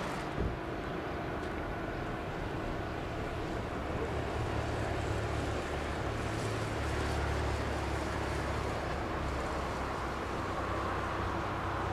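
Inland container barge's diesel engine running with a low, steady drone that grows stronger around the middle. A single short knock just after the start.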